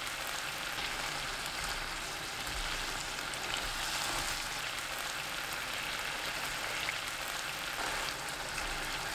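Tofu and ham in a thick gochujang sauce bubbling and sizzling steadily in a pan over high heat, with a spatula stirring through them in the later part.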